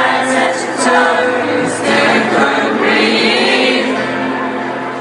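Live rock concert: a sung melody with many voices singing along, held notes over a full band sound, loud and steady.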